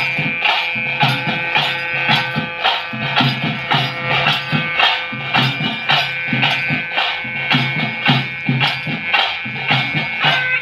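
Traditional ritual music for a bhuta kola dance: drums beating a fast, even rhythm of about four strokes a second under steady held tones.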